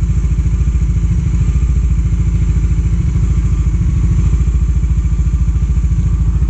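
Bajaj Dominar 400's single-cylinder engine running steadily with an even, rapid exhaust beat, its failed timing-chain tensioner now repaired.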